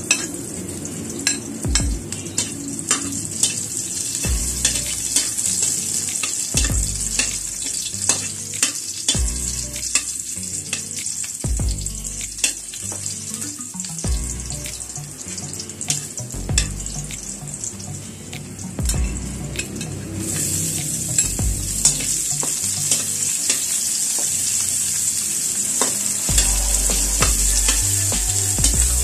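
Chopped garlic and sliced red onion sizzling in hot oil in a steel wok, with a metal spatula clicking and scraping against the pan as they are stirred. The sizzle grows louder about two-thirds of the way through.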